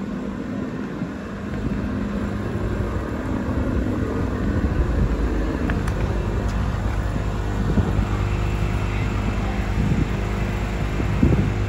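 An engine running steadily, its low hum growing stronger about four seconds in.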